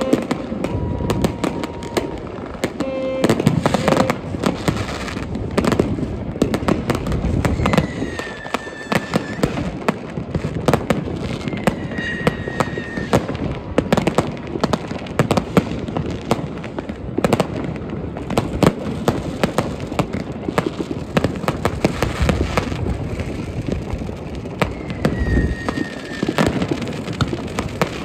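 Massed New Year's Eve fireworks: rockets, batteries and firecrackers going off in a dense, continuous barrage of bangs and crackling. A few short falling whistles come through the din.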